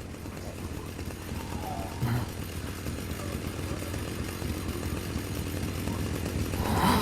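Chainsaw engine sound effect running low and rough, slowly growing louder.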